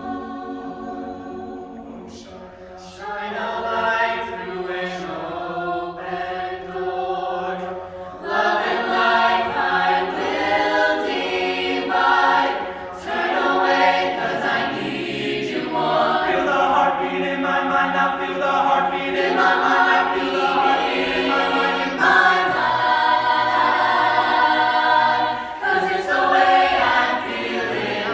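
Mixed men's and women's a cappella choir singing, with no instruments. It starts soft, with short pulsing notes about once a second, then swells fuller and louder from about eight seconds in.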